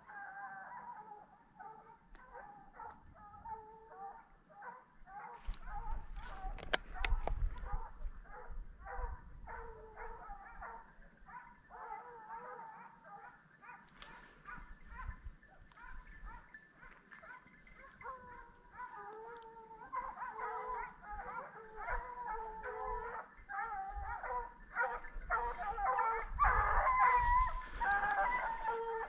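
A pack of hunting hounds baying and howling out of sight, many voices overlapping in a continuous chorus. The baying grows louder and denser from about two-thirds of the way through.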